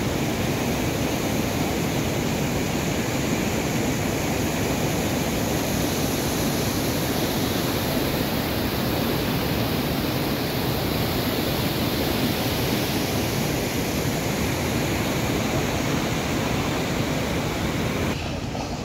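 Floodwater rushing across a road after heavy rain, a loud, steady rushing noise; near the end the higher hiss drops away.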